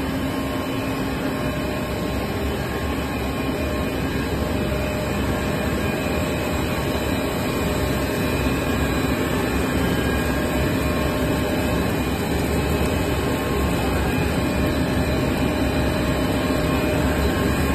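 Steady machinery noise from a PE stretch film cast line and its motors and blowers running, an even wash of noise with several steady tones held under it.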